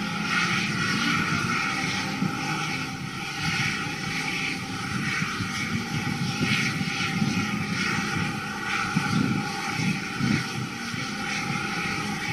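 Steady rumbling, hissing din of an airfield in the rain, with an aircraft engine running and a faint steady whine.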